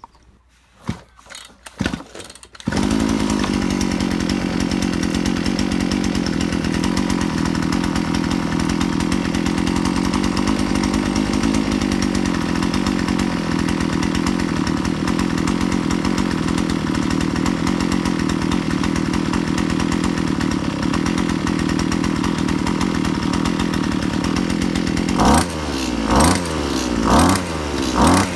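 Two-stroke petrol brush cutter pull-started: a few short tugs on the starter cord, then the engine catches about three seconds in and runs steadily on a fuel mix with extra oil, so that the carburettor, crankshaft, bearings and seals get an oil film for winter storage. Near the end it surges up and down in about four uneven revs as the throttle is opened with the choke closed, the engine beginning to flood.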